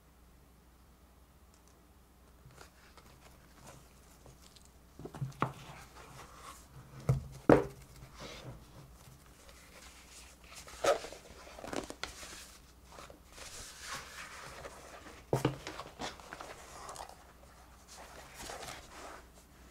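Hands handling a faux-leather playmat case and the rolled-up playmat inside it: several sharp knocks and taps, the loudest two close together about seven seconds in, with rustling and scraping between them as the mat is handled and unrolled.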